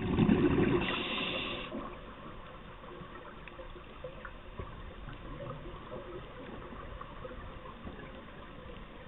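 A burst of exhaled scuba bubbles rushing underwater, loudest in the first second and fading out about two seconds in, then a faint underwater background with scattered small clicks.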